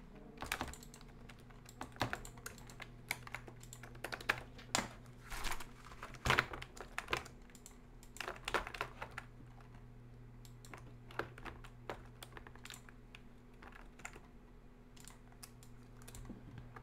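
Computer keyboard keys and mouse buttons clicking irregularly, busier in the first half and sparser later, over a faint steady hum.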